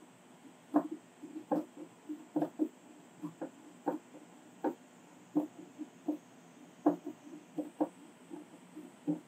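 Screwdriver turning the adjustment screw of a concealed cabinet hinge: a string of small, irregular clicks, about two or three a second.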